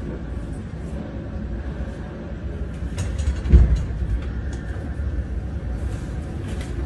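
Low, steady rumble of a jet airliner racing down the runway, with one heavy thump about halfway through.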